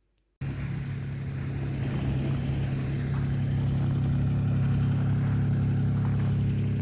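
A car running, a steady low drone that starts suddenly less than half a second in and grows slightly louder over the next few seconds.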